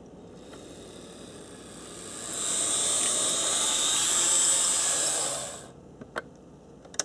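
HO-scale model steam locomotive running close past the microphone: a whirring hiss from its motor and wheels on the rails that swells over a couple of seconds, holds, then dies away about two-thirds of the way through.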